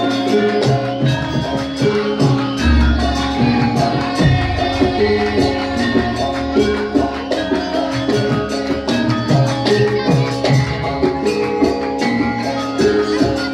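Lively music: a repeating melody of pitched notes over dense, steady percussion.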